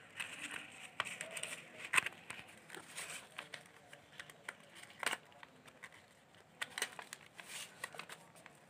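Sheet of plain white paper rustling and crinkling as hands fold it and press the creases flat: faint scattered rustles with a few sharper crackles.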